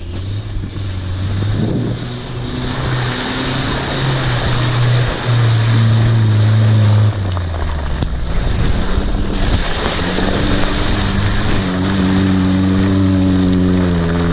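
Four-wheel-drive pickup and SUV engines revving hard while churning through a deep muddy track, with the engine note rising and falling with the throttle over a steady rush of spinning tyres and mud.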